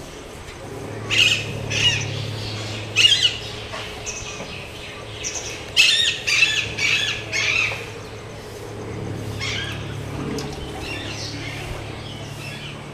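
Bird squawks: several short, harsh calls in bursts, loudest about three seconds and six seconds in, over a steady low hum.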